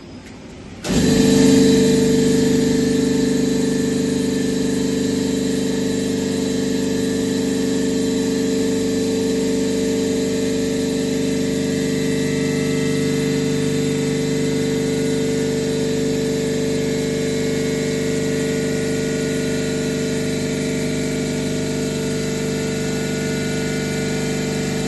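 Frascold Z30-102-51Y semi-hermetic reciprocating refrigeration compressor switching on abruptly about a second in and then running steadily with a constant low hum and drone during its start-up test.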